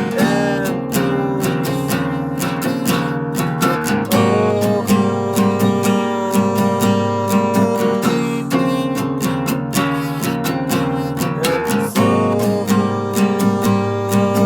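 Music led by strummed acoustic guitar, with a steady rhythm and a melody line above it.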